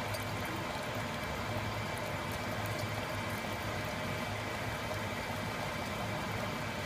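Bonavita BV1900TS drip coffee maker running its brew cycle: a steady hiss of water heating and flowing, over a low hum.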